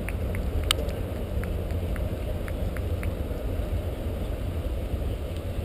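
Wind buffeting the camera's microphone as a steady low rumble, with a few sharp ticks scattered through, the loudest just under a second in.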